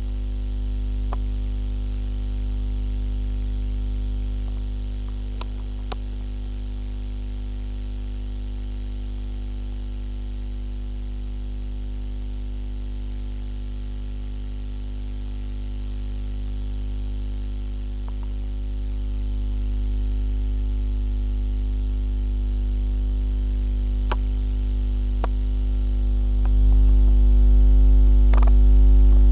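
Steady electrical mains hum with many evenly spaced overtones, growing louder a few seconds before the end, with a few faint clicks over it.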